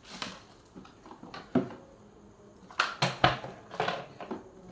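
Small hardware pieces and tools clinking and knocking as they are handled and set down: a scattered series of sharp clicks, several close together about three seconds in.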